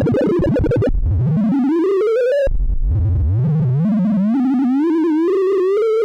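Synthesized sorting-visualisation tones, each one pitched by the value of the array element being accessed. A fast jumble of tones breaks off about a second in, giving way to a smooth rising pitch sweep. A second rising sweep follows that climbs in small wavering steps.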